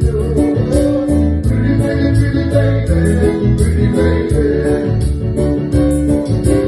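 Live band rehearsing a song: bass line, guitar and drums, with a steady cymbal beat of several strokes a second.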